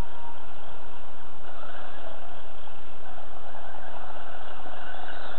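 Electric motor and gears of a radio-controlled crawler truck whining as it drives, the whine growing stronger about a second and a half in, under a steady hiss.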